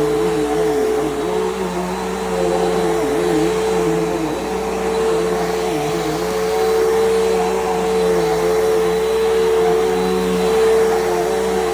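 Bissell PowerGroom bagless upright vacuum cleaner running steadily on carpet: a constant motor whine over a lower hum that wavers up and down in pitch as it is worked.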